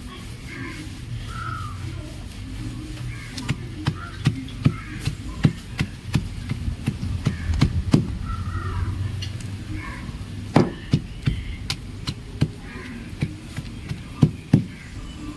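Pieces of chalk being crumbled and snapped by hand, giving sharp, irregular cracks and crunches that come thick and fast from about three seconds in.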